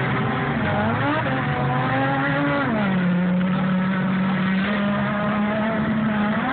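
A vehicle engine running. Its pitch rises about a second in, falls back about three seconds in, then holds steady with a slight rise near the end.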